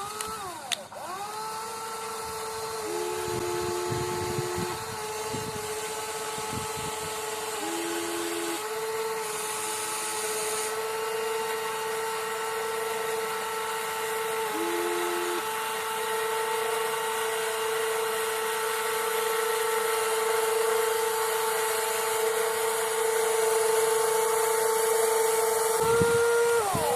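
Small electric motors of a WLtoys 16800 RC metal excavator whining steadily as it works. A second, lower motor tone cuts in briefly several times as other movements are driven. The main whine dips in pitch and picks up again near the start and near the end.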